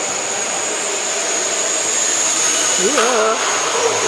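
Hexacopter (Flyduspider six-rotor multicopter) in flight, its propellers and electric motors giving a steady whirring hiss with a thin high whine.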